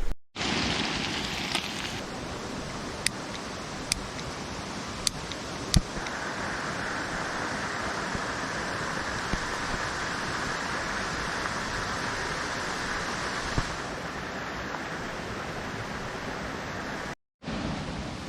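Steady rushing of running water, with a few sharp clicks in the first several seconds and a fuller stretch in the middle; the sound drops out abruptly near the end.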